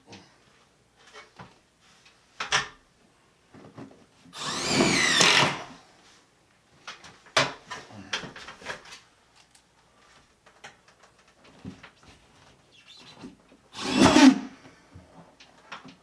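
Cordless drill running in two short bursts, about four seconds in and again near the end, amid knocks and rattles from a sheet-metal duct box being handled and fitted into a ceiling opening.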